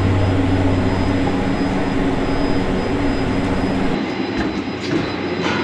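Gondola lift station machinery running with a steady, loud mechanical drone and hum. About four seconds in it thins to a lighter rumble, with a few sharp knocks near the end.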